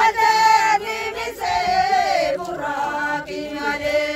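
A group of voices singing together in a chant with long held notes and sliding phrases.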